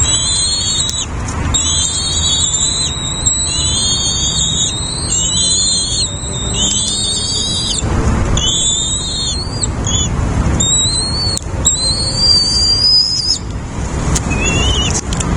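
Nestlings begging in the nest: a chorus of high, thin, wavering calls, nearly continuous with short breaks, over a steady low rumble.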